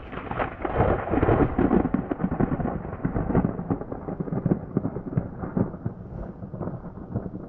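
Thunder from a lightning strike out of frame: a sudden crackling crash, loudest in the first two seconds, then a long rolling rumble with crackles that slowly fades.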